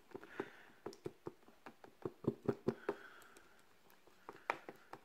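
A wooden craft stick stirring sticky PVA glue and paint in a plastic tub, tapping and scraping against the tub's sides in a run of irregular taps.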